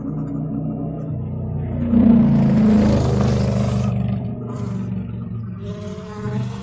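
Riding noise from a Rawrr Mantis electric dirt bike: wind and road noise over a steady low hum, swelling into a loud rush about two seconds in and easing off after about four seconds.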